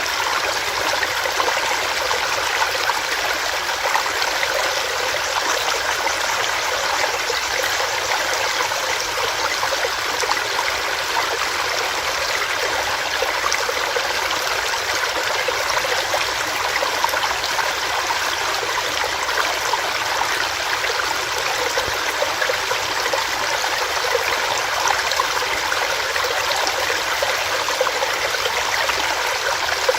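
Small rocky stream running over rocks: a steady babble and splash of water with no pauses.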